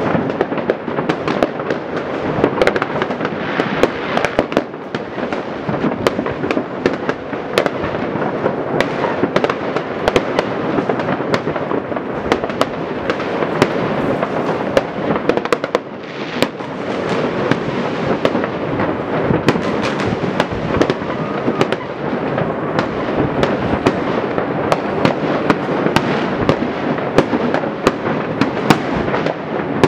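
Many fireworks going off at once across a city: a dense, unbroken crackle of overlapping bangs and pops, with frequent sharp reports standing out.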